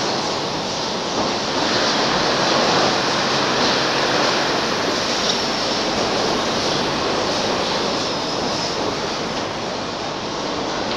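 Steady loud rushing noise with no clear pitch or rhythm.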